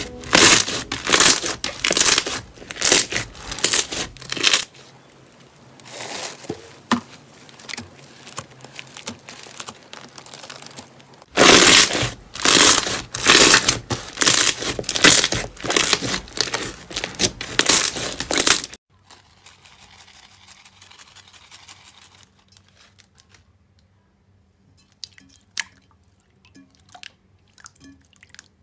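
Slime squeezed and pressed by hand, giving rapid crackling, crunchy pops in two loud spells. About two-thirds through, the sound drops suddenly to faint, scattered clicks and squishes.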